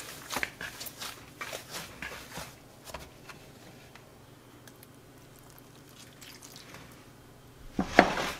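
Hands squeezing and kneading crumbly corn masa dough, made from Maseca and warm water, in a glass bowl: soft, irregular squishing and crackling for the first few seconds, then near quiet. A brief louder noise comes near the end.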